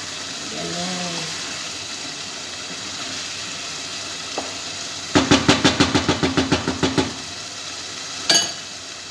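A wooden spoon knocked rapidly against the rim of a metal cooking pot, about a dozen quick, even taps over two seconds, with a single clatter about a second later. A steady hiss runs underneath.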